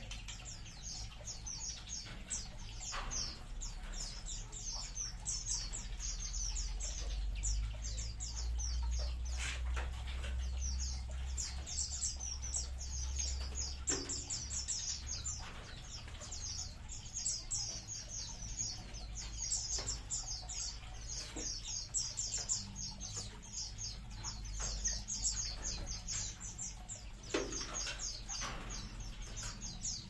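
A flock of small aviary birds chirping constantly, many short high chirps overlapping, with a few brief soft thumps scattered through and a low steady hum underneath.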